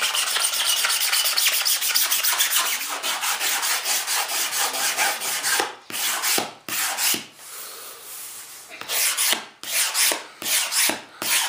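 Single-edge razor blade scraping excess cured resin off a fiberglassed RC airplane wing, in fast back-and-forth rasping strokes. After about five seconds the strokes come slower and separate, with short pauses between them.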